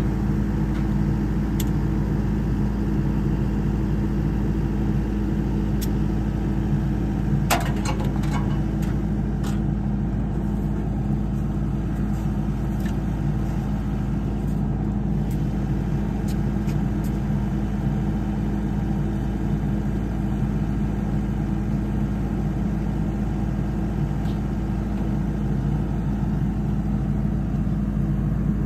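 An engine idling steadily throughout, with a few sharp metal clanks about seven to eight seconds in.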